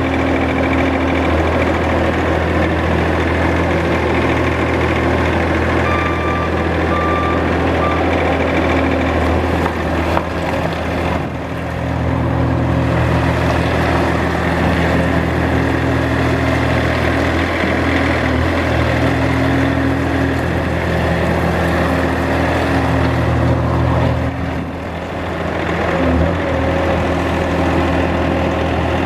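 Bobcat S450 compact skid steer's diesel engine running steadily, easing off briefly twice. A few short, high beeps sound about a quarter of the way in.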